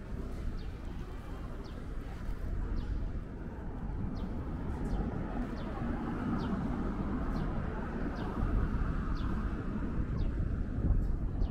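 Ambience of a covered pedestrian shopping arcade: a steady murmur of people and their footsteps, with faint light ticks recurring about every two-thirds of a second.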